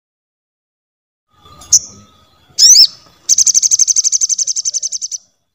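Pentis raja songbird calling: a single sharp high chip, then a short call that sweeps quickly up and down in pitch, then a fast, even trill of about two seconds.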